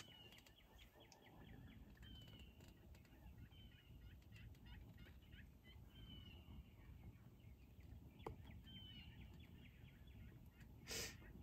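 Wild turkeys gobbling faintly in fast rattling runs. A single click comes about eight seconds in, and a short rush of noise near the end.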